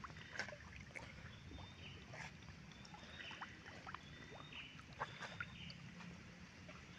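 Otters splashing and paddling in a shallow muddy ditch: faint small splashes and lapping water, with a couple of sharper splashes, about half a second in and about five seconds in.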